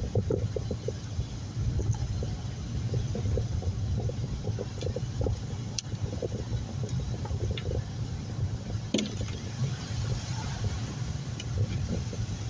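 Steady low rumble of a car driving, heard from inside, with scattered faint ticks and taps.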